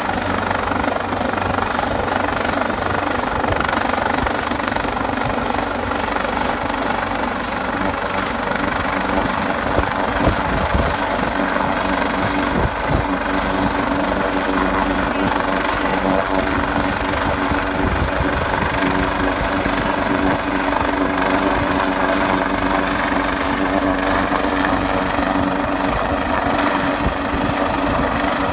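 Coastguard search-and-rescue helicopter running steadily, a loud continuous rotor and turbine drone with a constant hum.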